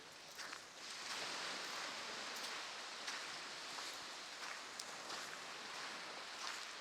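Surf washing onto a beach: a steady hiss of breaking waves that swells about a second in and holds.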